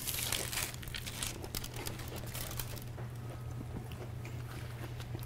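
Crunching and crackling as a deep-fried crispy chicken sandwich topped with fried onion strings is bitten into and squashed, a dense run of crackles that dies down about three seconds in, over a steady low hum.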